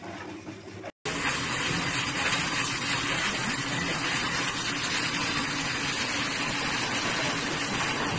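Steady loud rush of a high-velocity pet dryer blowing out a dog's thick coat, starting abruptly about a second in.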